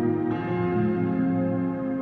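Slow ballroom dance music with long held chords, the chord changing about a third of a second in and again near the end.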